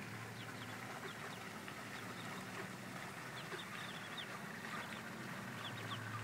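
A brood of mallard ducklings peeping: many short, high peeps, several at once at times, scattered throughout.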